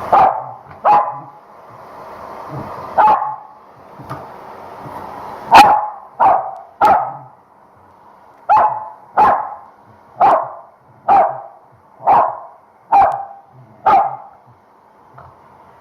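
Corgi barking sharply and repeatedly, about thirteen loud single barks a second or less apart, in protest at being blow-dried.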